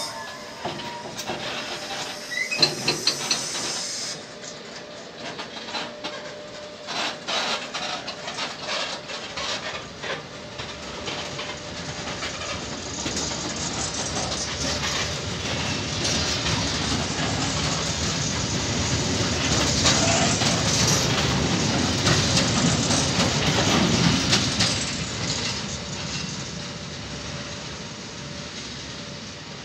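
Freight train of tank wagons rolling past: the wheels clatter over rail joints, with a brief high wheel squeal in the first few seconds. The rumble and hiss build to their loudest in the middle, then fade near the end as the train draws away.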